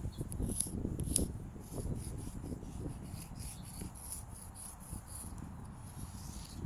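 Chalk scraping in repeated short, irregular strokes, a few a second, with wind rumbling on the microphone.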